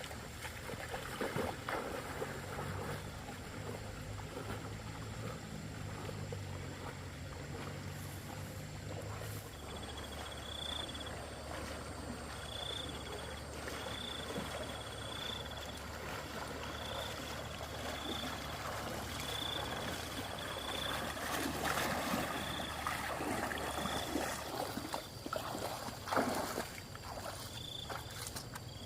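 A motor hums steadily, its pitch shifting about a third of the way in. From then on an insect chirps with short, evenly spaced calls about once a second.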